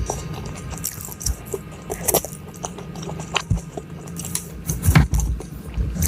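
Close-miked eating sounds: chewing, with scattered sharp clicks and crackles and a few soft thumps from handling food. The loudest clicks and thumps come about two seconds in and again about five seconds in.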